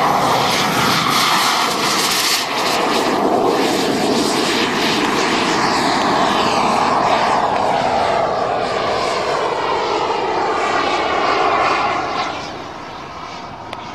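Black Mamba model jet turbine on a Feibao Mirage F1 RC jet at high power through its takeoff roll and climb-out: a loud, steady jet roar with sweeping tones as the jet passes. About twelve seconds in it drops away as the jet flies off into the distance.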